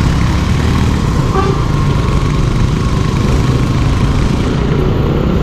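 Motorcycle engine running steadily while riding on a wet road, under a constant rush of wind and tyre noise.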